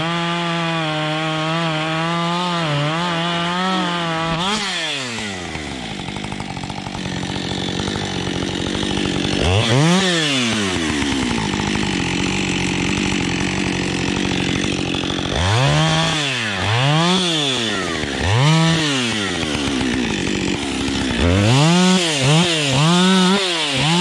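Husqvarna 550 XP two-stroke chainsaw held at high revs for about four seconds, then dropping to idle. It is revved in short bursts: once about ten seconds in, three times a little past the middle, and several times in quick succession near the end.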